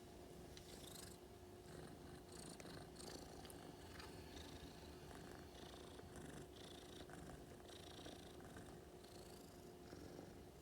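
A sleeping brown-tabby-and-white cat snoring faintly, soft rasping breaths repeating about once a second.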